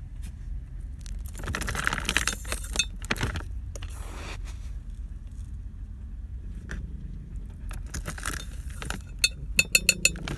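Handling and rustling noises, then a quick run of about six sharp clinks against a ceramic mug near the end, ringing briefly. A steady low hum underneath.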